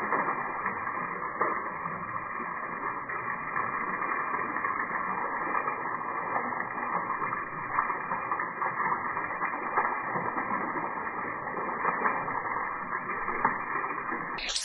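A thin stream of water trickling and splashing down a wet rock face: a steady splashing hiss with small irregular drips, heard muffled with the high end cut off.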